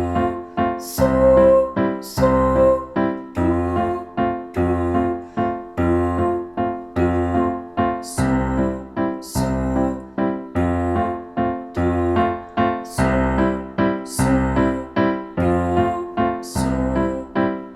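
A piano plays a song accompaniment: an even, rhythmic pattern of chords struck over a low bass note on each beat.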